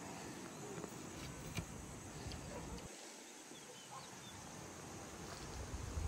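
Faint bird calls over a low background hiss, with a few light clicks.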